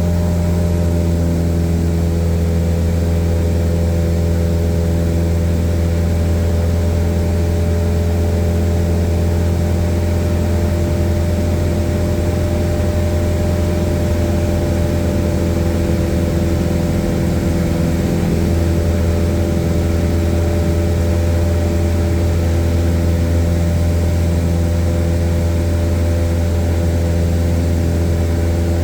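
Airplane engine and propeller droning steadily in level flight, a constant hum with several steady tones and no change in pitch.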